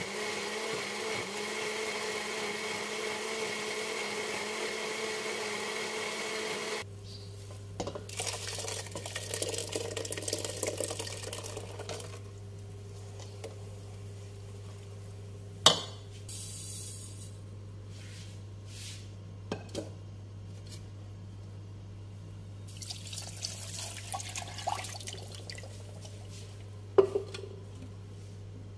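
Countertop blender motor running steadily, blending chilies and seasonings, then cutting off about seven seconds in. After it, liquid sloshes and a ladle stirs in a stainless steel pot, with two sharp knocks against the pot.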